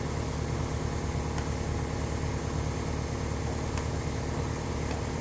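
Steady mechanical hum of background machinery, like a shop fan, with a couple of faint clicks.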